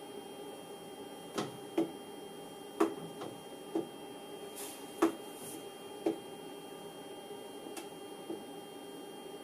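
Pneumatic pressure controller clicking irregularly, about nine sharp clicks in all, as it regulates the vacuum on the altitude encoder and the simulated altitude climbs. A steady electrical hum runs underneath, with a brief hiss of air about halfway through.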